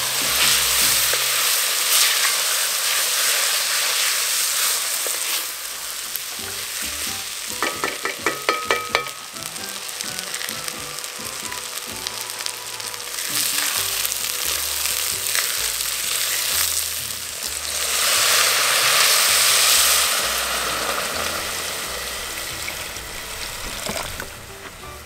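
Rice with corn, pepper and onion sizzling as it fries in oil in a cast-iron pot and is stirred with a wooden spoon: the rice being toasted before the liquid goes in. A quick run of clicks about eight seconds in, and the sizzling swells for a couple of seconds near the end.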